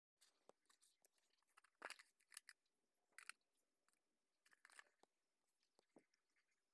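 Faint crinkling, crackling and clicking of hands handling plastic packaging and small paint jars, in short irregular bursts.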